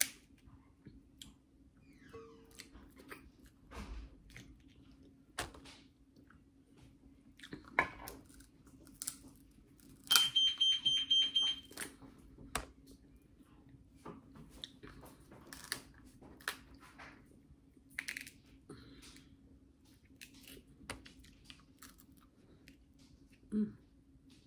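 Crab leg shells cracking and being peeled by hand, with scattered clicks and crunches, and chewing. About ten seconds in, a rapid run of high-pitched electronic beeps lasts under two seconds and is the loudest sound.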